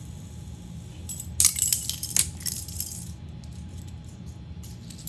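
Fidget spinners being handled: a quick cluster of sharp metallic clicks and clinks starting about a second in and lasting under two seconds, then a few faint scattered clicks.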